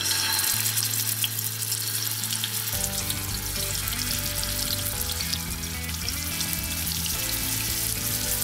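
Tilapia fillets sizzling in hot oil in a nonstick frying pan as they are laid in one by one for shallow frying; the sizzle starts as the first piece goes in and keeps up steadily. Soft background music plays underneath.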